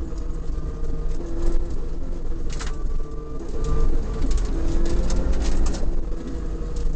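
Toyota Corolla Levin's 4A-GE four-cylinder engine heard from inside the cabin under hard driving, its revs climbing and dropping back several times through gear changes over a steady low rumble. Gravel clatters sharply against the underbody, most densely in the second half.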